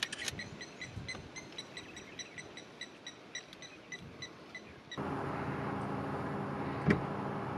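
A quick run of short, high-pitched chirps, about four a second, from a small calling animal. About five seconds in the sound switches abruptly to the steady hum of an idling vehicle engine, with a single knock near the end.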